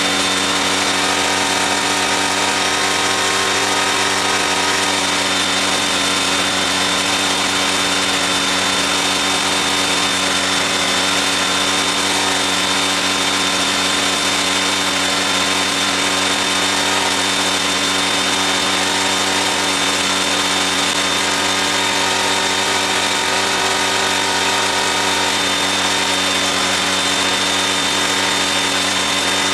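A small engine or motor running at a constant speed: a steady hum with a thin high whine over it, unchanging throughout.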